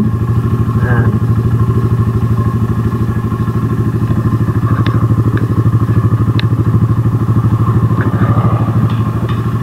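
Motorcycle engine idling with a steady, even beat, and a few faint clicks along the way.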